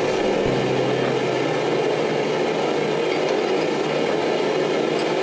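Workshop machinery running with a steady, even roar, with no hammer blows.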